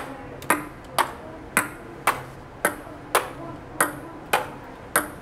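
A ping pong ball struck up off a plastic clipboard and bounced on a desktop in turn: an even run of sharp, light clicks about two a second, ten or so in all.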